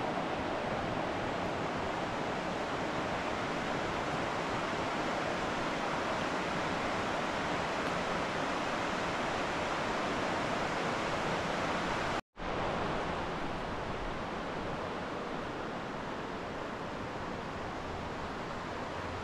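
Steady rush of flowing river water. It cuts out for a split second about twelve seconds in, then carries on slightly quieter.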